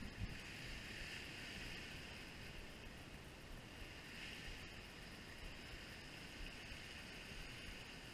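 Steady wash of ocean surf breaking on the jetty rocks, with a low wind rumble on the microphone.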